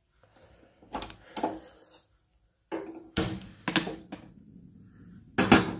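Sharp knocks and metal clanks as a gas stove is lit and a steel pot is handled and set on the burner: about five strikes, some with a short metallic ring, the loudest just before the end.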